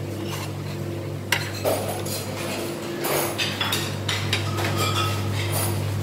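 Buffet dining-room clatter: scattered clinks of dishes and cutlery over a steady low hum.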